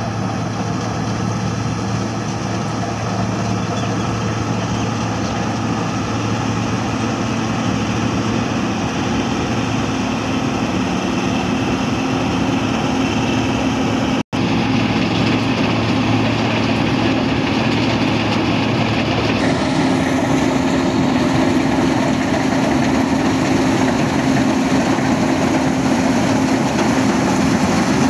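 New Holland 8070 combine harvester running steadily while it cuts a standing paddy crop. Its engine and machinery drone grows gradually louder as it comes closer. A momentary break falls about halfway through.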